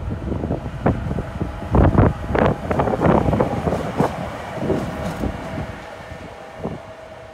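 DB Class 185 electric locomotive running light past at close range, its wheels knocking in quick succession over rail joints and points, loudest about two seconds in, with a steady hum beneath that fades as it moves away.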